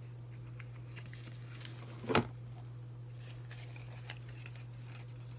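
Small handling noises of objects being moved on a desk: one sharp knock about two seconds in and a few faint rustles and clicks, over a steady low hum.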